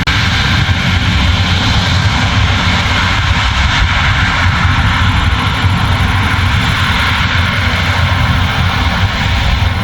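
New Holland CR10.90 combine harvester running steadily while threshing barley: a deep engine sound under a dense mechanical rush from the threshing and separating machinery.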